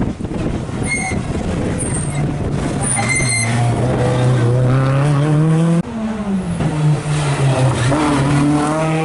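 Renault Clio rally cars at full throttle on a sprint stage, engines revving hard. The pitch climbs steadily as one car accelerates, breaks off sharply, then dips and climbs again for the next car. A few brief high-pitched squeals come in the first few seconds.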